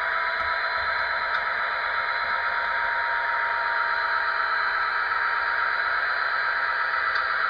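Digital EMD F40PH diesel prime mover sound running steadily from a LokSound decoder through the small speaker of an HO scale model locomotive, with a steady high whine over it.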